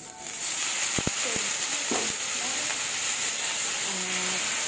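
Soy-marinated pork pieces hitting hot oil in a frying pan of sautéed garlic and onion, setting off a loud sizzle that starts sharply just after the start and holds steady as the meat sears. A few light knocks sound over it about a second and two seconds in.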